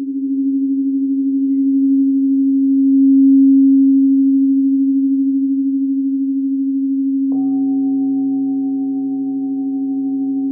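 Singing bowl sounding a steady, pure tone that pulses and swells, as if rimmed with a mallet; about seven seconds in a second bowl is struck and rings on with the first, adding a lower and a higher tone.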